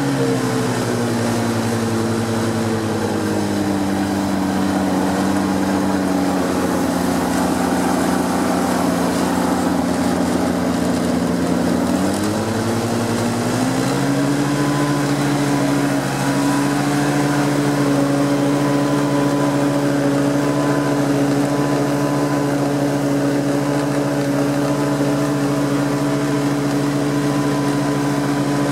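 Nissan A15 four-cylinder engine of a Prochem Performer 405 truck-mount carpet cleaner running steadily. Its speed drops over the first few seconds, holds low, then rises about twelve seconds in and holds steady at the higher speed.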